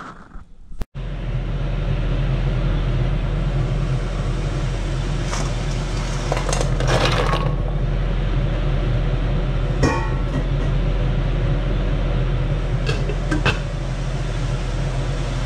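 A steady low hum and rush at the gas stove while mussels steam in a covered pot, broken by a few light clinks of the glass lid against the pot.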